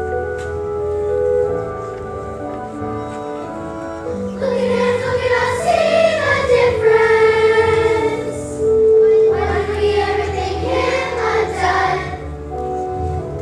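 A group of children singing with keyboard accompaniment. The keyboard plays held notes alone at first, the voices come in about four seconds in, and they stop shortly before the end, leaving the accompaniment.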